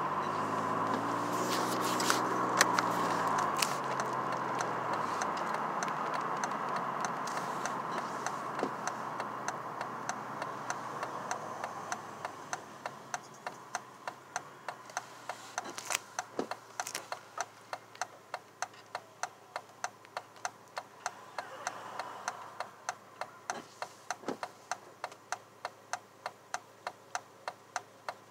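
Car slowing to a stop, its road noise dying away. Then the turn-signal indicator ticks steadily, about two clicks a second, while the car waits at the light.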